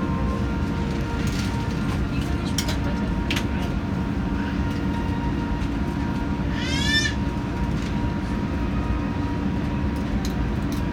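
Steady low rumble and hiss inside the cabin of an Airbus A380 leaving the gate, with a few faint clicks. A brief high rising squeal comes about seven seconds in.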